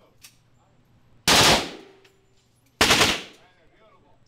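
Machine gun firing two short bursts of automatic fire about a second and a half apart, each trailing off in a brief echo.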